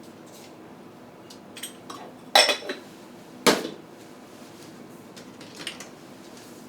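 Kitchen cookware and utensils knocking together: two loud clanks that ring briefly, about two and a half and three and a half seconds in, with lighter clicks around them.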